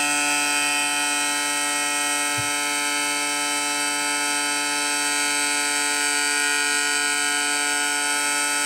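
Electronic siren played through a speaker on its tsunami setting, sounding one steady, harsh, unwavering tone with no rise or fall in pitch. A small low bump is heard about two and a half seconds in.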